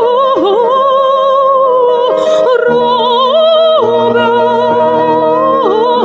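Background music: a slow melody of long held notes with vibrato and occasional pitch swoops, over a low accompaniment that comes in partway through.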